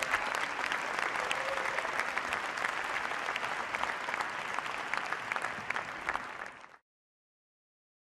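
Audience applauding steadily, a dense patter of many hands clapping, which cuts off suddenly near the end.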